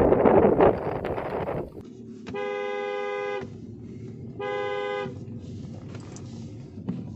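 Strong wind buffeting the microphone, then after a cut a car horn sounds twice, one longer beep and one shorter, over a low engine rumble.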